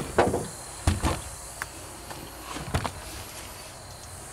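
Handling noise as the camera is picked up and repositioned: a sharp click, then a few knocks and rustles over the next three seconds. A faint steady insect chirring runs in the background.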